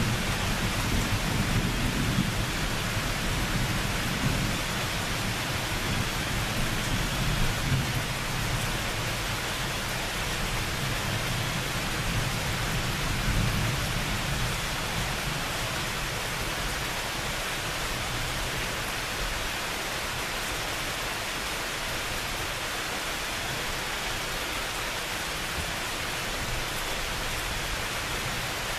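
Steady rain falling, with a long low rumble of distant thunder through the first half that slowly fades away, leaving only the rain.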